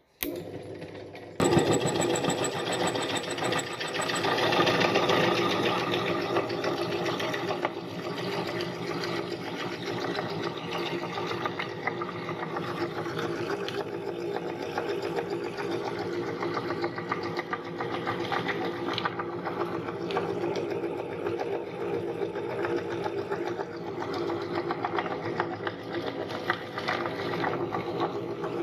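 Electric meat grinder starting about a second and a half in, then its motor running steadily with a constant hum.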